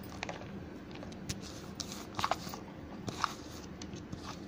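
Grated carrot tipped from a plastic plate into a plastic bowl of chopped onion: soft scattered clicks and scrapes of the dishes, with a couple of brief squeaky scrapes, the louder ones about two and three seconds in.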